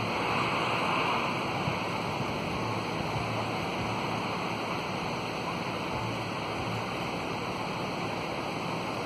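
Steady outdoor noise: a continuous, even hiss with no distinct events, swelling slightly about a second in.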